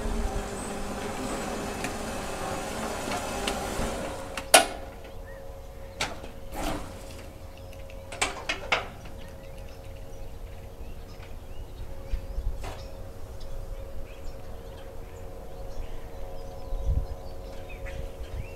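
Home-built electric lawn tractor driving over a rutted yard: a steady electric motor hum with several sharp clunks from the loose body and hood as it jolts over bumps, the loudest about a second after a noisier opening stretch ends.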